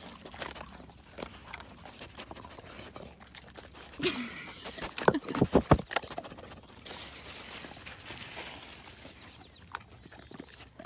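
A Labrador puppy nosing right up against the phone: about five seconds in, a quick run of loud knocks and rubbing on the microphone, with small rustles and ticks of puppies moving about on the grass before and hissy noise after.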